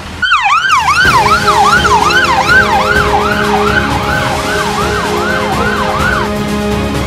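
Fire engine siren on a fast yelp, sweeping up and down about two and a half times a second, then cutting off about six seconds in. Background music plays underneath.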